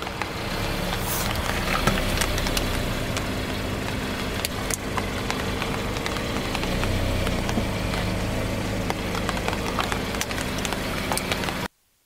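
Car engine idling steadily as a tyre rolls over and flattens a row of toy fruits on asphalt, with scattered crackles and crunches. The sound cuts off abruptly near the end.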